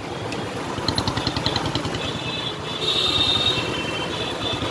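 Busy market-street traffic: a motorcycle engine runs close by as a fast, steady low putter. Over it come high ringing trills from a cycle-rickshaw bell, about a second in and again around the three-second mark.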